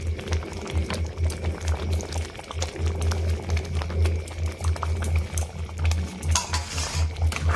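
Thick vegetable dalia khichuri bubbling at a boil in a large aluminium pot: low, irregular plopping, with light clicks of a spoon against the pot.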